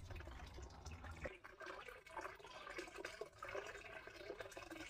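Faint, irregular trickling and gurgling of water.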